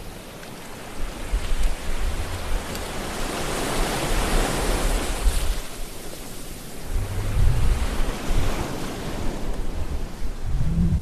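Surf and wind: an even rushing wash that swells and fades around the middle, with low gusts of wind buffeting the microphone.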